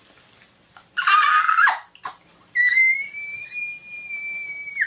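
A short shrill cry about a second in, then a long high-pitched whistle-like squeal held steady for about two seconds that cuts off suddenly near the end.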